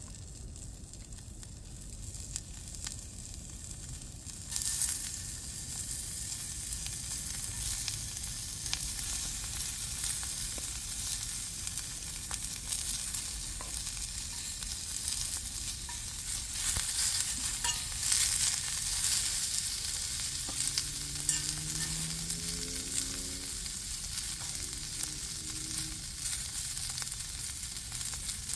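Food sizzling in a cast-iron skillet over a campfire, with small crackles and ticks; the sizzle jumps up about four seconds in.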